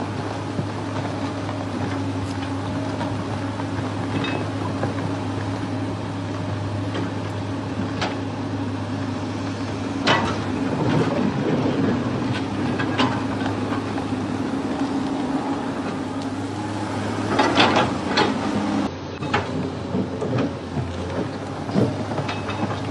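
Steady low mechanical running hum, like a vehicle's, with occasional sharp knocks and a cluster of clatters about three-quarters of the way through.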